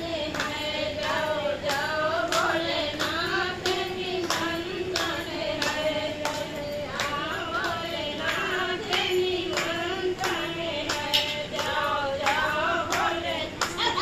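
Women singing a Hindu devotional bhajan together in a single melody line at a puja, keeping time with steady hand claps.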